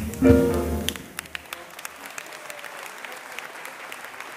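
A jazz band's final chord, with drums and double bass, hits loudly and rings out for about a second. The audience then applauds steadily.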